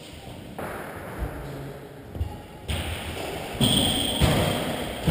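Badminton rally on an indoor court: scattered thuds of players' feet on the court floor and racket strikes on the shuttlecock, getting louder about halfway through. The sound is heard in a large sports hall.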